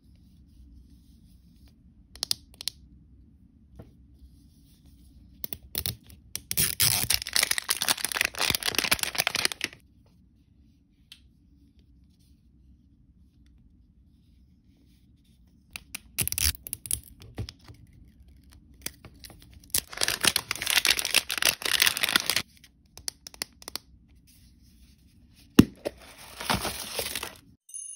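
Printed plastic wrapper being torn and crinkled off an L.O.L. Surprise doll ball in several long bursts of tearing, with faint ticks between them. Near the end there is a sharp click as the hard plastic ball's halves are pried apart at the seam.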